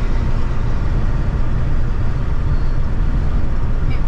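Steady road and engine rumble inside a vehicle driving at highway speed, deep and even.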